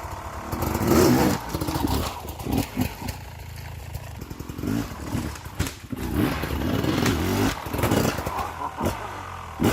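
Beta 300RR two-stroke dirt bike engine revving in short repeated throttle bursts, rising and falling every second or two as it is ridden over logs, with a few sharp knocks.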